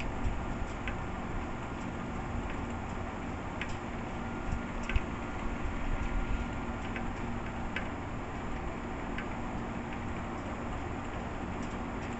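Steady outdoor storm noise with irregular, sharp ticks of rainwater dripping, about one a second.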